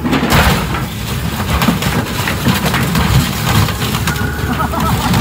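A scrap handler's orange-peel grapple crushing the sheet-metal body of a school bus: loud crunching, crackling and creaking of metal that starts abruptly right at the beginning, over the steady running of the machine's diesel engine.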